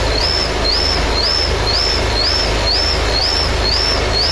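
Tractor engines running hard under load in a tug-of-war pull, a deep, continuous, pulsing rumble under a dense wash of noise. Over it a high electronic chirp rises and holds, repeating about twice a second.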